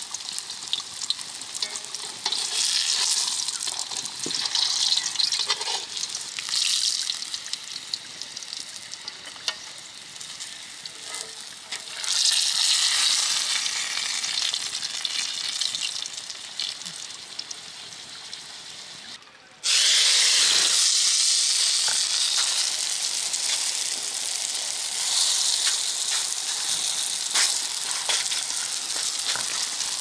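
Bolani flatbread shallow-frying in hot oil in a cast-iron pan, a steady sizzle with scattered small pops. Just past the middle the sizzle breaks off for a moment and comes back louder.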